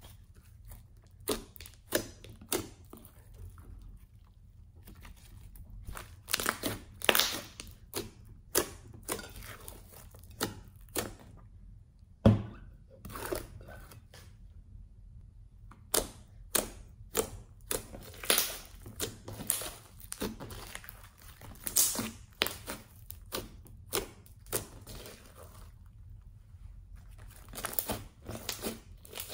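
Thick pink slime being stretched, squeezed and pressed by hand, making irregular sticky pops and crackles. There is one louder thud about twelve seconds in, with short quiet pauses just after it and again near the end.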